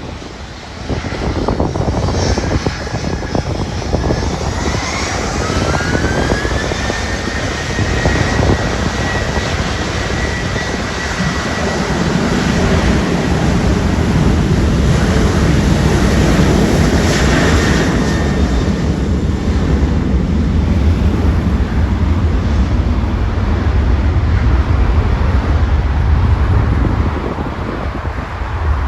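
Boeing 737-800's CFM56-7B turbofan engines spooling up for takeoff: a whine rises in pitch over about two seconds, then holds steady. A deep jet rumble builds from about twelve seconds in and eases off near the end.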